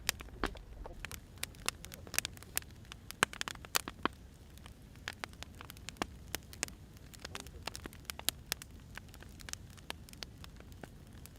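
Burning firewood crackling, with irregular sharp pops and snaps over a low, steady rumble.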